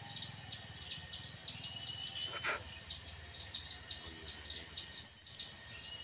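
Crickets trilling steadily in a high pitch, the trill broken into short notes repeating several times a second. A single sharp click comes about two and a half seconds in.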